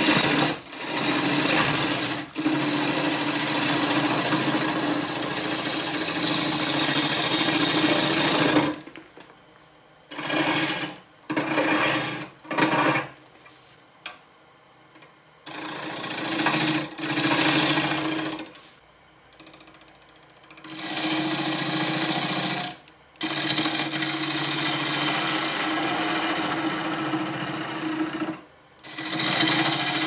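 Wood lathe spinning an alligator juniper blank while a gouge cuts it: a steady motor hum under the harsh hiss of the tool shaving wood in long passes. The cutting stops and starts several times, with short bursts between quieter stretches.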